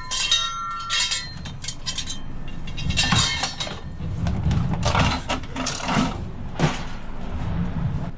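Scrap metal clanking and rattling as pieces are shifted about, a ringing metal clink right at the start, over a steady low rumble.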